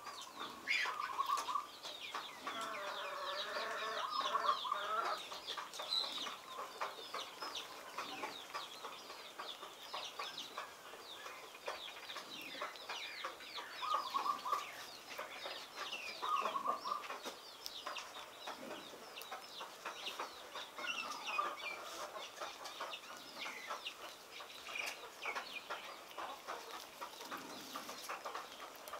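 Chickens clucking, loudest in the first five seconds, with many quick high chirps throughout.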